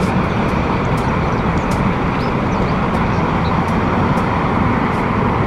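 Concrete mixer truck running steadily, its engine and rotating drum giving a constant mechanical din with a low hum while it discharges concrete down its chute.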